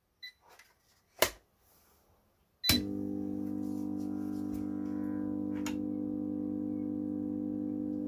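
A switch clicks about a second in, and a louder click near three seconds in brings on a microwave oven transformer. It then hums steadily on mains power under heavy load, its secondary winding shorted through a bolt and drawing hundreds of amps.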